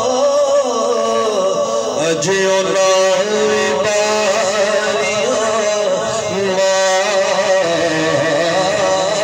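A man singing a Punjabi naat in praise of the Prophet in long, drawn-out notes whose pitch wavers in ornaments.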